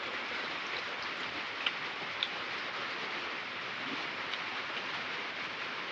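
Steady background hiss with a couple of faint clicks.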